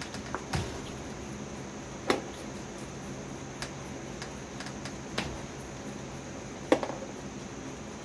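Steady insect chirring, with several sharp knocks and clunks: milk bottles knocking in the wooden bottle rack as whitetail fawns butt and pull at them. The loudest knocks come about two seconds in and near the end.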